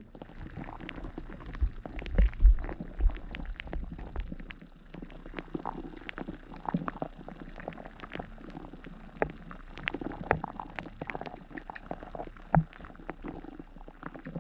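Underwater river sound heard through a camera sitting on the riverbed: a muffled, gurgling rumble with low thumps in the first few seconds, then a steady scatter of small clicks and crackles.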